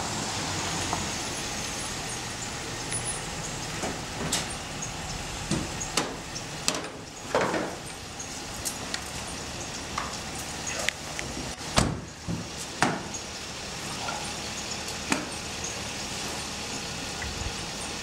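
A police patrol car's door being opened and the officer climbing in: scattered clicks and knocks of the door and her duty gear, the sharpest about twelve seconds in, over a steady rushing background.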